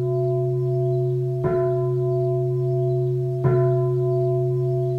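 A bowl-shaped bell of the singing-bowl kind, struck again and again, each stroke ringing on in long steady tones until the next. New strikes come about a second and a half in, about three and a half seconds in, and again at the very end.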